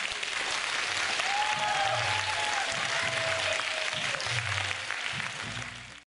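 Audience applauding at the end of a dance number, fading out at the very end.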